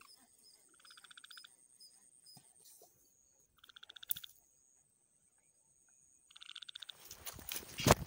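A frog calling in short pulsed trills, three times a couple of seconds apart, over a faint steady high insect-like tone. Near the end, rustling handling noise with a sharp knock.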